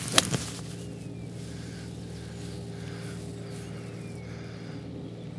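A pitching wedge striking a golf ball off the turf: one sharp crack about a quarter of a second in. A steady low hum runs underneath.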